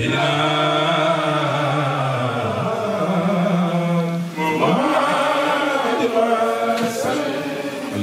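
A man's voice chanting an Islamic religious litany through a handheld microphone, holding long, level notes. The pitch steps up about three seconds in, and there is a short breath break about four seconds in before the next phrase rises.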